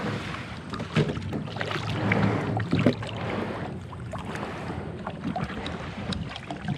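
Lifetime plastic sit-on-top kayak being slid off the shore into shallow water and boarded: hull scraping and sloshing, with several sharp knocks, the loudest about a second in and near the three-second mark.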